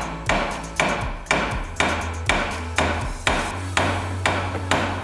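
Steady hammer blows on a steel part of the brake assembly, about two a second, each with a short metallic ring. The blows are mushrooming the end of the part being driven.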